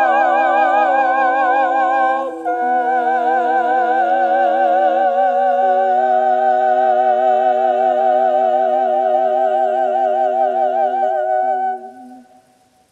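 Wordless singing by several voices, holding sustained chords with vibrato; the chord changes about two seconds in, and the last chord fades away near the end.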